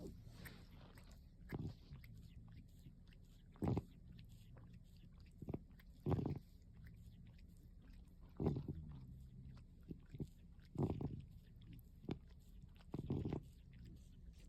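A cat grooming itself close to the microphone: short licking and nibbling sounds every second or two. Under them runs a faint, noise-like rasp of breathing, the sign of its asthma.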